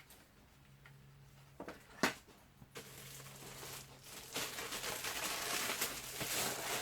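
Plastic packaging rustling and crinkling as parts are handled out of the box, with a single sharp knock about two seconds in, the rustling growing louder over the last few seconds.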